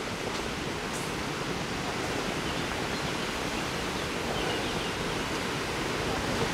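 Steady rushing noise that slowly grows louder as a distant FSE Ad 37 diesel railcar approaches.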